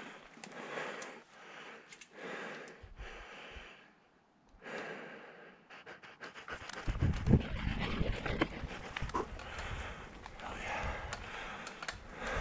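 A mountain biker panting hard from the effort of climbing, with breaths roughly once a second. From about seven seconds in, a low rumble and scattered clicks from the ride join the breathing.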